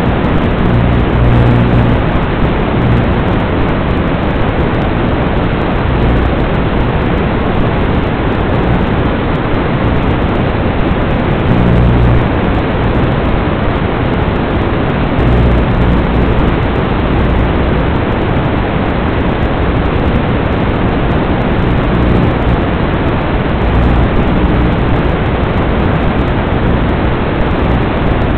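Steady, loud hiss from the analog FPV video link's audio channel as recorded by the goggles, with a low hum underneath that swells briefly several times.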